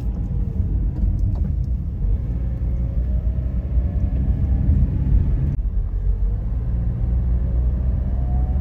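Car driving, heard from inside: steady low road and engine rumble, with the engine's pitch rising slowly as it accelerates, twice, with a jump between them about halfway through.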